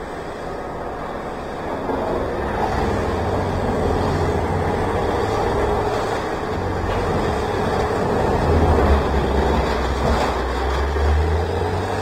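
Heavy engine rumble, growing louder about two seconds in and swelling again near the end.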